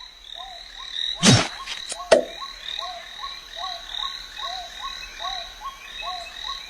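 An animal calling over and over with a short rising-and-falling note, about two to three calls a second, over a steady high-pitched drone. Two loud sudden thumps cut in about a second and two seconds in, the first louder.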